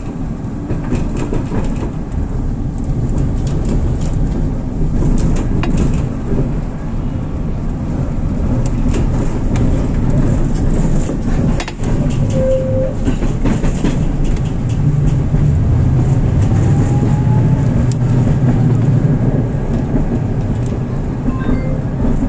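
Tatra T3SU tram running along the track, heard from inside the car: a steady low rumble of wheels and motors, with scattered clicks and knocks from the rails, a little louder in the second half.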